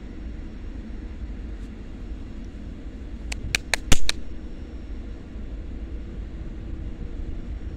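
Distant diesel locomotive running as it approaches: a low, steady rumble. About three and a half seconds in comes a quick run of five sharp clicks.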